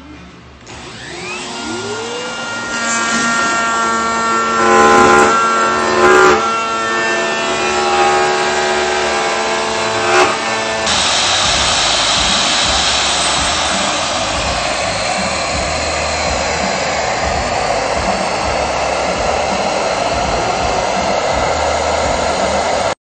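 Handheld CNC router motor spinning up with a rising whine, then running steadily with a dust extractor. About halfway through, the sound changes to an even, steady rushing noise as it cuts into the wood.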